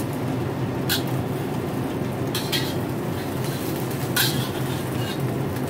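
Metal spatula scraping and tapping against a wok a few times, brief strokes about a second in, twice around two and a half seconds and once past four seconds, over a steady low hum.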